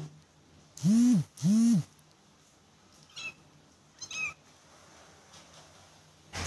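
Cat meowing twice, two drawn-out meows that each rise and fall in pitch, followed by two faint, high-pitched kitten mews.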